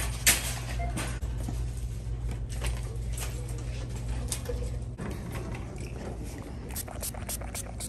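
Metal shopping cart rattling and clicking as it is taken and pushed across a hard store floor, with a sharp clatter just after the start, over a steady low hum.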